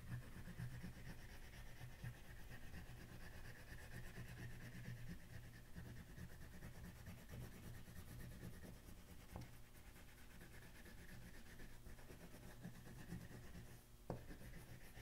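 Faint scratchy rubbing of an oil pastel scribbling back and forth on paper as an area is shaded in, with two light taps, about nine and fourteen seconds in.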